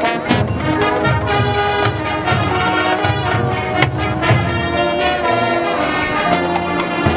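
Marching band playing: brass holding and moving through sustained chords over low brass, with percussion hits throughout.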